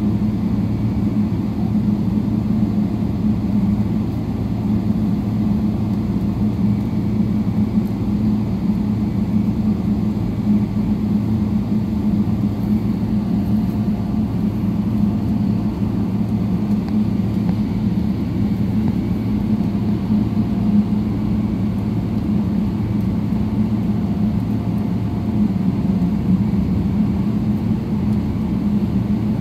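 Airliner cabin noise while taxiing, heard from a window seat over the wing: a steady low drone and hum from the jet engines at taxi power and the cabin air system.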